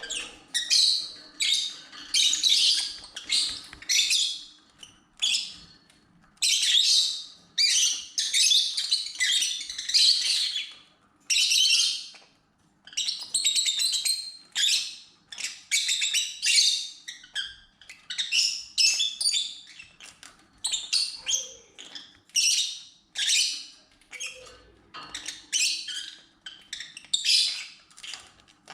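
Lovebirds chirping and chattering in shrill bursts about a second long, one after another with short gaps.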